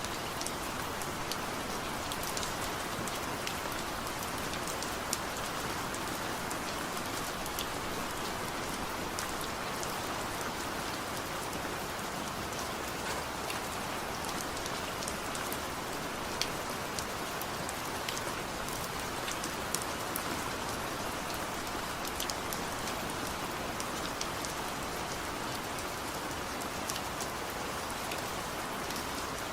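Steady light rain falling, an even hiss with scattered individual drops ticking sharply on a surface.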